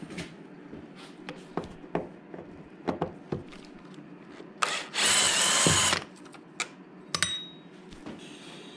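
Cordless 18V drill-driver running for about a second and a half a little past the middle, turning a screw on the motorcycle's air filter housing. Scattered small clicks and knocks of tools and parts being handled come before it, and a single ringing metallic clink comes after it.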